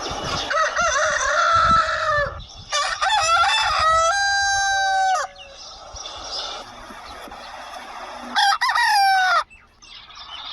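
Desi roosters crowing three times: a crow about half a second in, a long drawn-out crow from just under three seconds to past five, and a short crow near the end, with a low background of farmyard noise between them.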